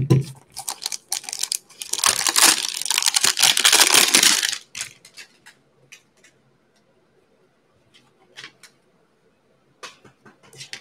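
A cardboard trading-card hanger box being torn open: a knock at the start, then about four seconds of tearing and crinkling, then scattered light clicks and taps as the contents are handled.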